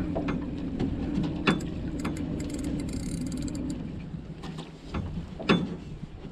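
Spinning fishing reel whirring and clicking under load while a hooked chinook salmon is fought, for about four seconds before fading. A few sharp knocks come in between, the loudest near the end.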